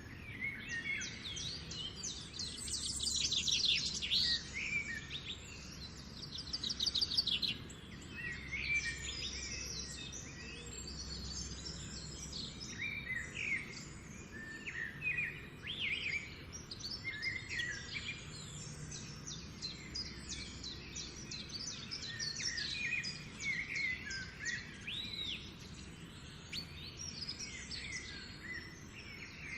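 Many birds chirping and calling together in a dense, overlapping morning chorus of short, quick notes and trills, over a steady low background rumble.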